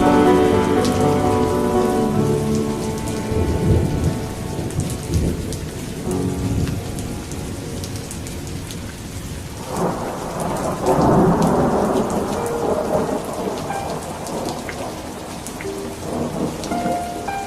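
Steady rain falling with fine pattering drops, and a roll of thunder that comes in suddenly about ten seconds in and rumbles for a few seconds before fading back under the rain.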